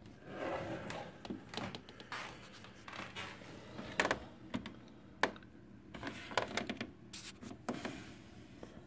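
Handling noise of hands at a Sears solid-state console stereo's controls: irregular scratching and rustling with scattered clicks, the sharpest about four and five seconds in.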